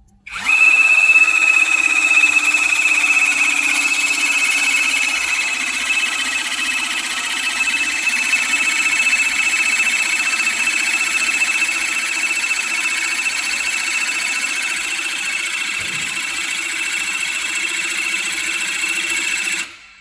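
Cordless 18 V electro-hydraulic crimping tool running its motor-driven pump to close the crimping die on a cable lug: a steady high-pitched whine over a low hum. It starts up at once, runs for about nineteen seconds and cuts off suddenly.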